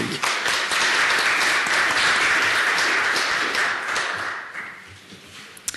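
Audience applauding, a dense patter of many hands that dies away after about four and a half seconds. A single sharp click comes near the end.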